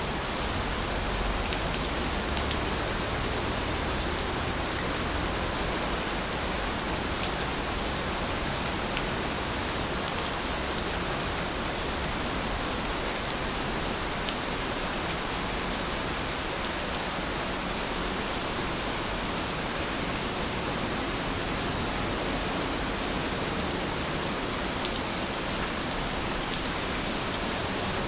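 Steady rain falling, an even hiss with scattered sharper drip ticks.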